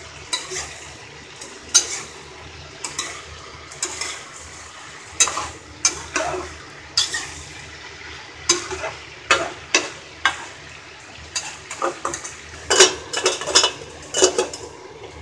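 Diced vegetables frying in a steel kadai under a steady sizzle, with a metal spatula scraping and knocking against the pan every half second to a second as they are stirred. Near the end there is a cluster of louder metal clanks as the steel lid goes on.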